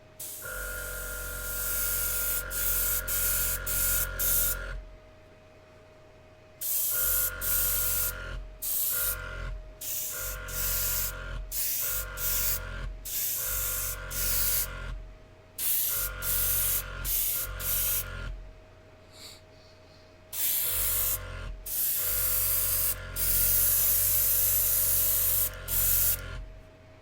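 Gaahleri Ambition Series airbrush spraying in repeated bursts of air hiss as the trigger is pressed and released: a few seconds long at the start, a run of short bursts in the middle, and a longer one near the end. Its small compressor hums along during each burst.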